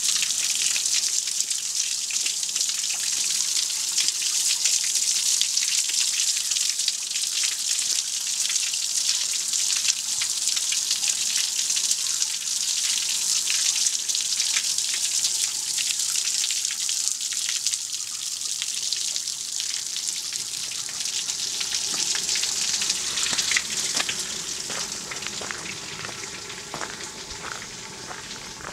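Water spilling over the rim of an old stone platform basin, once used to wash soot off steam locomotives, and splashing in streams into the pit below. It is a steady splashing hiss that fades over the last few seconds.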